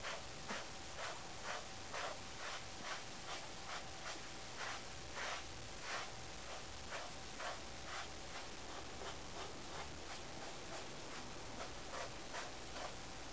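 A small brush drawn through a Siamese cat's coat in repeated strokes, about two a second.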